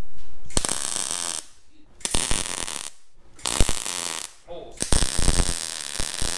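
MIG welder laying short stitch welds on steel: the arc runs in bursts of about a second with short pauses between, four in all, the last one longer.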